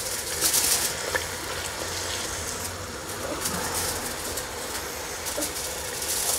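Onion, garlic and ginger paste frying in oil in a pot, a steady sizzle, with a few brief scrapes as a spatula stirs it.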